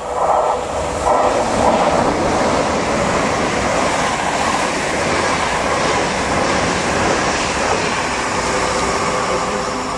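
Great Western Railway Intercity Express Train passing close by at speed: a loud, steady rush of wheels on rail and displaced air, with a pulsing clatter in the first two seconds.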